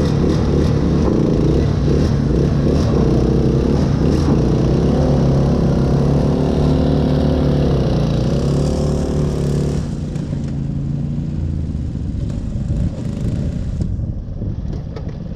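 Riding lawn mower engine running hard, its pitch wavering up and down, then settling to a quieter run about ten seconds in.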